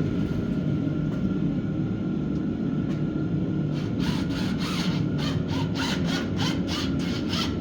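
A steady low rumble, joined about four seconds in by a run of evenly spaced rasping strokes, about three a second.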